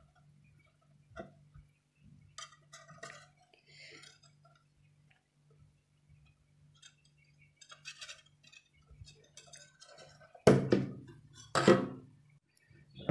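Steel pot clinking and scraping lightly against a glass tray as thick dough is poured out, then two loud metal clanks near the end as the pot is handled and set down.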